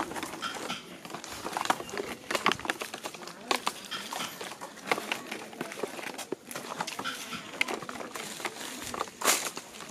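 Rocket fireworks on thin wooden sticks clicking and clattering against each other and against a cardboard box as they are packed by hand. The sound is a run of irregular taps and light rustles.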